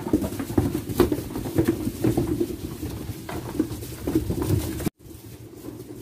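Barn sounds in a sheep pen: rustling and knocking with short, low, repeated animal calls. It breaks off suddenly about five seconds in, leaving quieter barn sound.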